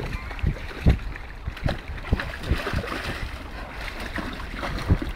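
Dog digging at the bed of a shallow stream, splashing water and knocking at the stones and concrete under it: irregular splashes and thuds, about a dozen in five seconds, over running water.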